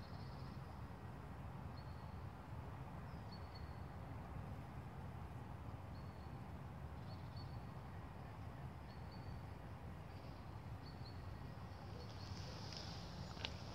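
Quiet outdoor background: a steady low rumble, with short, faint high chirps every second or two and a few clicks near the end.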